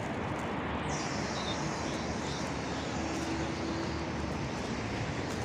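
Steady city traffic noise, an even wash of road sound with no single event standing out.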